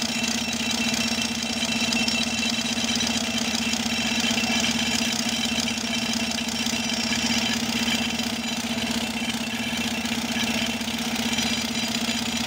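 Massey Ferguson tractor's diesel engine running an air compressor, with a hose-fed pneumatic rock drill hammering a hole into the rock. The machine noise holds steady throughout.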